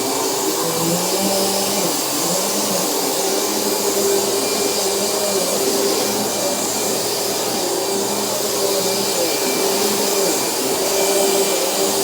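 Dirt Devil Featherlite (085590) bagged upright vacuum running continuously: a steady motor hum and rushing air with a fixed mid-pitched tone, and lower tones that waver up and down.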